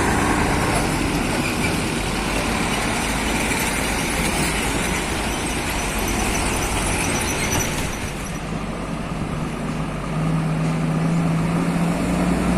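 Heavy truck engine running with steady traffic rumble; about ten seconds in a low, steady engine drone comes up louder.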